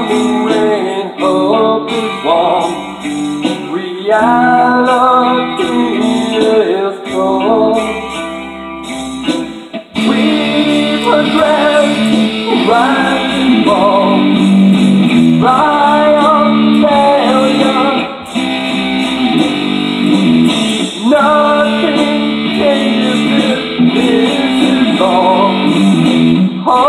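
Electric guitar playing a hard rock piece: bent, held melody notes over chords, the sound growing fuller and denser about ten seconds in.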